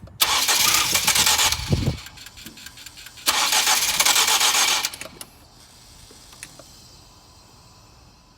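2007 Ford Focus starter motor cranking twice, about a second and a half each time, with a pause between; the engine does not catch, the cold no-start that the owner suspects is a failing starter.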